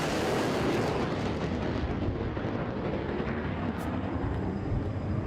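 Loud, steady engine noise of an airplane flying low overhead, a wide rushing hiss over a continuous low rumble, the hiss easing slightly after about a second.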